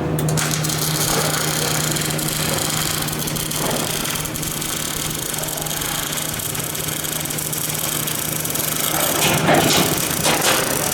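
A metalworking power tool running steadily with an even hiss-like noise over a constant low hum. It starts just after the beginning and stops about a second and a half before the end, followed by a couple of knocks.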